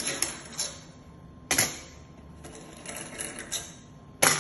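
Sharp metallic clicks and clacks of stainless steel parts being handled and fitted on a Tosei SS21 semi-automatic shumai machine, irregular rather than in a steady rhythm, with two louder knocks about one and a half seconds in and near the end.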